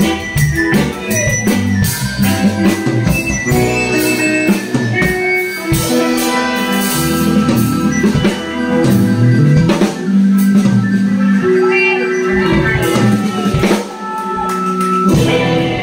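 Live band playing an instrumental passage: electric stage keyboard, bass guitar and drum kit with cymbals, with a walking bass line under keyboard chords and steady drum hits.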